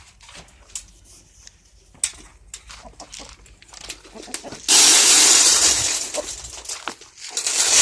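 Chickens clucking softly, with scattered light clicks and rustles. About five seconds in, a sudden loud rushing noise lasts a second or two and fades, and it swells again near the end.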